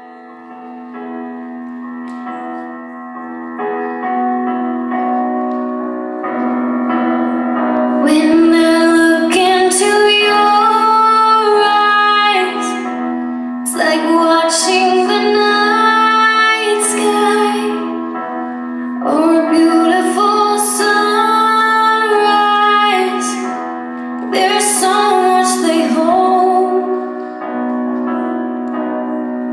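A recorded piano ballad with a woman singing, played over a theatre sound system. It swells up from quiet piano chords, the voice comes in about eight seconds in and sings in phrases with short pauses between them, and a steady low hum runs underneath throughout.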